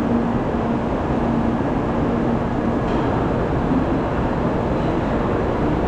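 Steady hum and noise of a Shinkansen platform, with a faint steady low tone, from an N700A Shinkansen train standing at the platform.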